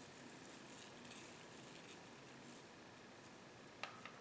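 Near silence: room tone, with a couple of faint short clicks near the end.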